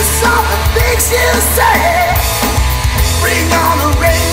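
Hard rock music: drum kit, bass and electric guitars, with a lead melody bending and sliding over them.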